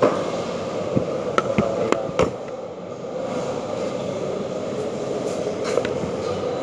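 A steady rumbling noise, with a cluster of sharp knocks in the first couple of seconds and one more near the end.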